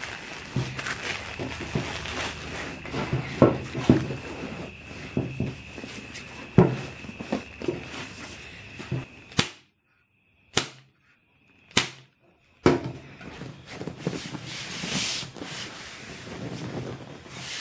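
Handling noise of a new vinyl seat cover being worked down over a car seat back on a plastic slip sheet: rustling and creaking of vinyl and plastic with irregular knocks and taps. A faint steady high whine runs under it. About the middle there is a few seconds of near silence, broken by a few sharp clicks.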